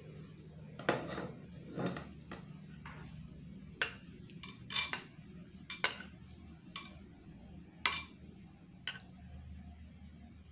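Thin wooden skewer knocking and scraping against the glazed ceramic crock of a slow cooker while prodding hide scraps in the water: about ten sharp clicks, roughly one a second, some with a short ring.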